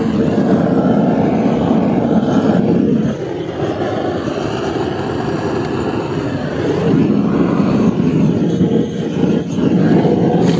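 Gas blowtorch burner fed from a small propane cylinder, running with a steady roar as its flame scorches the inside of a wooden beehive box to disinfect it. The roar eases for a few seconds in the middle, then comes back up.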